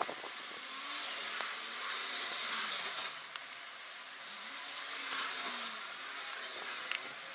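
Steady background hiss, with a sharp click at the start and a few faint ticks from a small pick and tweezers working a tiny metal connector contact.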